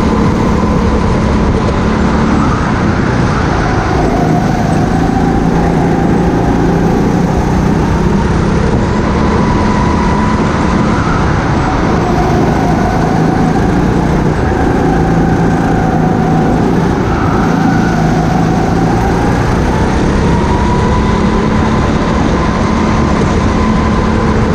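Go-kart engine running hard on track, its pitch dropping and climbing again several times as the revs fall and rise through the corners.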